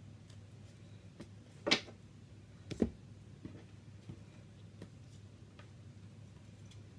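Tarot cards being handled and laid down on a desk: a few short taps and clicks, the sharpest about two seconds in, over a low steady hum.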